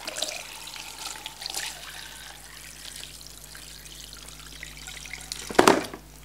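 Mutton broth pouring and splashing through a large steel mesh strainer into a plastic bowl, thinning to a trickle. Near the end there is a sharp knock as the cooked meat tips out of the pressure cooker's pot onto the strainer.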